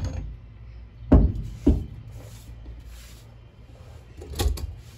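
A few dull knocks and thumps from handling things on a wooden workbench top: two loud ones close together just over a second in, and another near the end.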